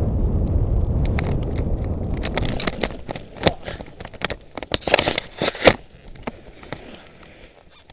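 Wind buffeting the microphone of a paraglider pilot's camera during the landing approach, dying away over the first few seconds. Then a run of sharp crackles, knocks and scrapes as the pilot touches down and the camera rubs against dry grass and ground, settling to quiet near the end.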